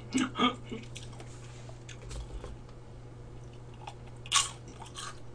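Close-miked eating sounds: chewing and biting, with a short, sharp sound about four seconds in.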